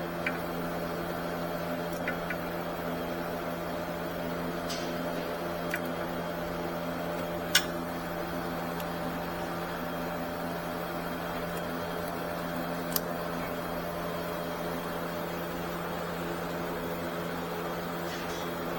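A steady mechanical hum with several held pitches, broken by a few sharp clicks, the loudest about seven and a half seconds in.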